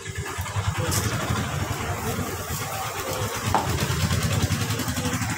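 A vehicle engine running steadily, a low continuous rumble.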